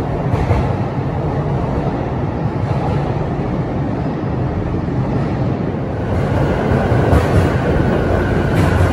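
Sotetsu commuter trains in an underground station. One train's running noise fades as it leaves into the tunnel. From about six seconds in, another train runs along the platform, louder, with a steady whine over the rumble.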